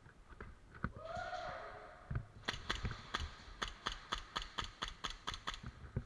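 Airsoft pistol firing a quick string of about a dozen sharp shots, roughly four a second, starting a couple of seconds in.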